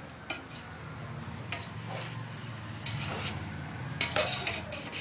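A spoon stirring cooked biryani rice in a pot, with several scrapes and knocks of the spoon against the pot over a steady low hum.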